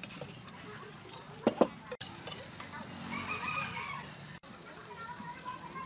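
A rooster crowing once, a drawn-out call of a little over a second near the middle. Two sharp knocks about a second and a half in are the loudest sounds.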